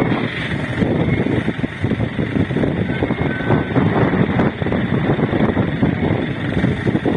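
A loaded dump truck's diesel engine running in a steady rumble, with no clear revving.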